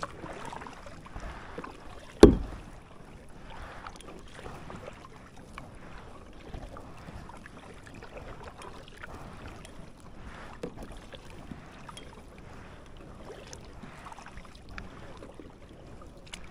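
Kayak paddle strokes in lake water, soft repeated swishes and splashes with water lapping, and one sharp loud thump about two seconds in.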